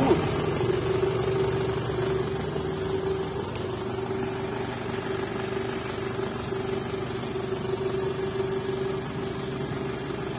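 Isuzu Elf dump truck's 120 PS turbo-diesel engine idling steadily, with a constant hum over the low engine note; it is a little louder in the first second or two.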